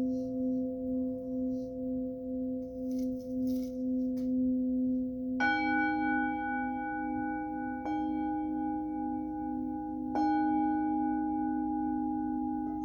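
Singing bowls ringing: one bowl holds a low tone that pulses slowly as it wavers, and a second, brighter bowl is struck about five seconds in, then twice more, each strike ringing on over the first.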